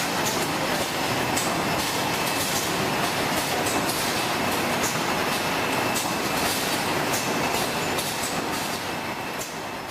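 Automatic screen-printing machine for tapes running: a steady mechanical clatter with sharp clicks about once a second and a faint steady high whine, beginning to fade near the end.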